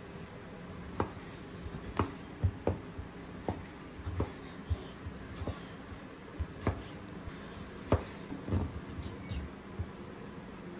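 Kitchen knife cutting a tomato into chunks on a wooden cutting board: irregular sharp knocks of the blade striking the board, about one or two a second.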